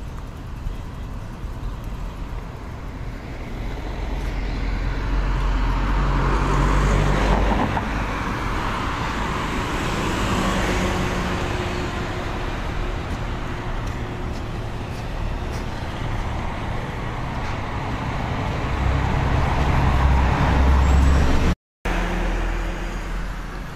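Road traffic: cars passing along a street, the noise swelling and fading several times. The sound cuts out for a moment near the end.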